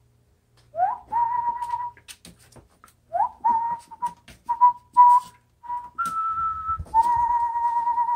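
A person whistling to rouse a litter of puppies. Two calls, about 1 and 3 seconds in, each swoop quickly upward into a held note. Then come a few short notes, a higher held note about 6 seconds in, and a long final note.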